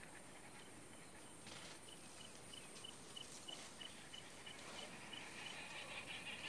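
An insect chirping faintly, about three short high chirps a second in an even rhythm, over quiet outdoor background hiss.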